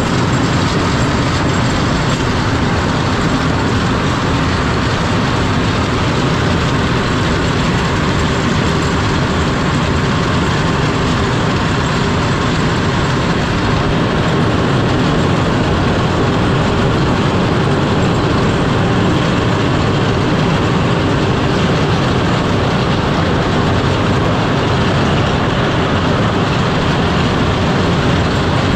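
Cat 140M3 motor grader cutting road ice: the moldboard's toothed bit boards scrape and shatter the ice while the diesel engine runs under load. A loud, steady noise that does not let up.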